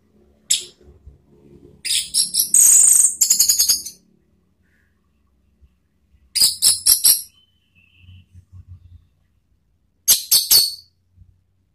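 Orange-headed thrush (anis merah) singing: short phrases of rapid, high-pitched twittering notes, four phrases with pauses between them, the longest lasting about two seconds.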